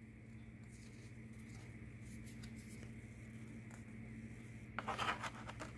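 A quiet low hum, then near the end a brief scraping rustle as a card is handled and slid into a wooden card stand.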